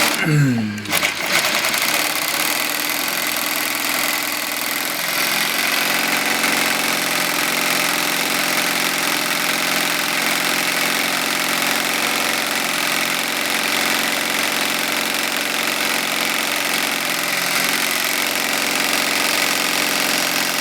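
Industrial zigzag cylinder-bed sewing machine (Atlas AT2150M) running steadily, stitching through denim.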